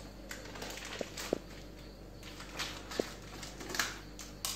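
Kitchen handling sounds: a few light clicks and knocks, some with a brief ring, and soft rustling as a plastic packet and bowls are handled on the counter.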